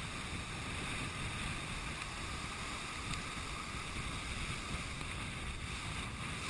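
Heavy storm surf breaking and churning over a rock jetty, with wind rumbling on the microphone; a steady, unbroken wash of water and wind noise.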